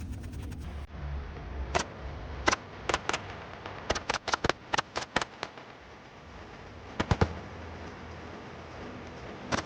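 Upholstery staple gun firing: about fifteen sharp clicks at uneven spacing, with a quick run of shots about four seconds in and a few more later.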